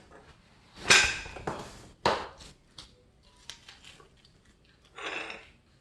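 Handling noises from unboxing a pull-up bar: a sharp knock about a second in trailing into rustling, another knock around two seconds, a few small clicks, and a short rustle near the end, as packaging and metal parts are moved.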